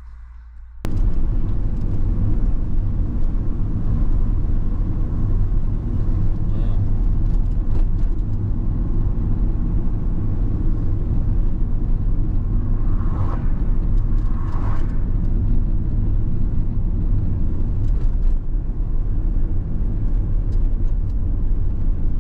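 A camper van on the move: a steady low rumble of engine and road noise, which starts abruptly about a second in.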